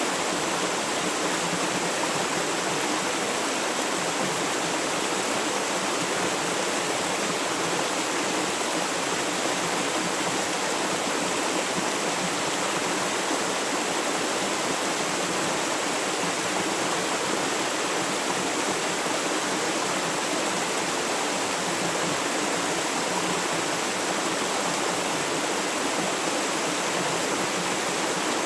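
Flowing river water: a steady, even rush of running water that does not change.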